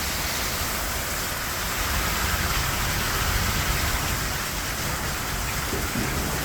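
Heavy rain pouring steadily in a severe thunderstorm, with strong wind giving a low rumble underneath.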